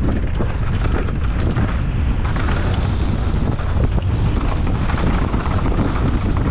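Wind buffeting the microphone of a mountain bike descending a dirt trail at speed, a steady rumble with frequent small knocks and rattles from the bike over the ground.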